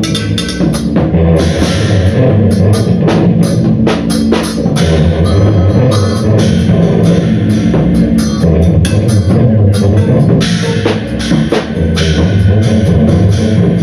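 Live band playing loudly: a drum kit struck busily, with many sharp hits and cymbals, over heavy low-pitched instruments.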